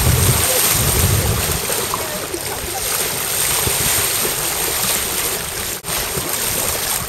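Wind buffeting the microphone and water rushing past the hull of a sailing yacht under way. The low wind rumble is heaviest in the first second and a half.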